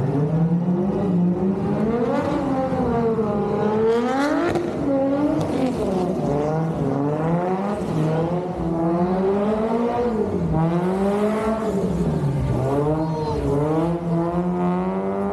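Drift car's engine revving up and down over and over as it slides, its pitch rising and falling every second or two, then climbing and holding high near the end.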